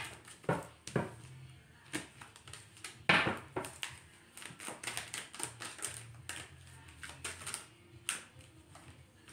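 Tarot cards being shuffled and handled: a run of light, irregular clicks and taps as the cards slip against each other.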